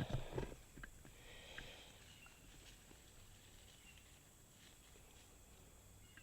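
A few soft knocks and rustles in the first half second as rock pieces are handled, then quiet outdoor background with a few faint, short high chirps.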